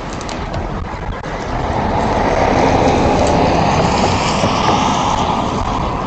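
A car driving past, its tyre and road noise swelling to a peak about three seconds in and then fading away.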